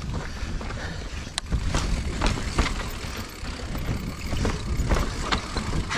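Full-suspension Giant Reign mountain bike rolling down rough slickrock: a low rumble with about ten irregular sharp clacks and rattles as the wheels drop over rock edges, one of the sharpest about a second and a half in.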